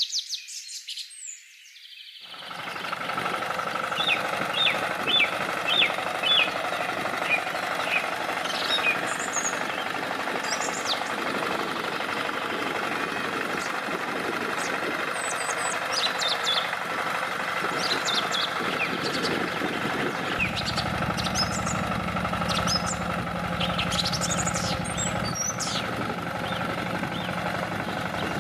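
Birds chirping and tweeting throughout, over a steady engine-like drone that comes in about two seconds in; a deeper rumble joins about two-thirds of the way through.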